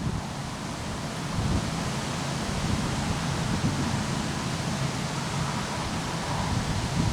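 Wind blowing through trees in a steady rushing hiss, with irregular low rumbling buffets of wind on the microphone that pick up again near the end.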